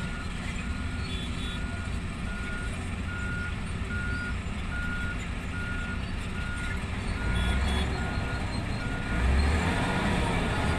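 Diesel engine and rock drill of an excavator-mounted drill rig running with a steady low rumble that swells louder twice in the latter half. A back-up alarm beeps evenly about twice a second over it and stops near the end.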